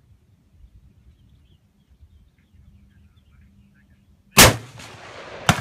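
A single shot from a Mauser Kar98k bolt-action rifle (7.92×57mm) about four seconds in, loud and sharp, with a long ringing tail. A second, shorter crack follows about a second later near the end.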